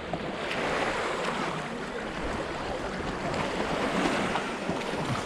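Waves washing onto a beach: a steady hiss of surf that swells a little about half a second in and again near the end.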